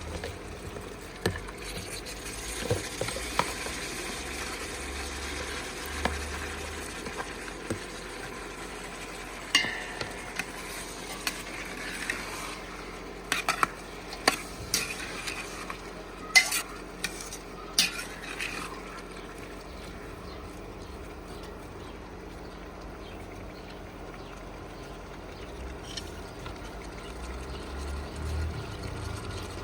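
Onions frying in a pan with a steady sizzle, stirred with a spoon that knocks against the pan in a quick run of clinks through the middle stretch.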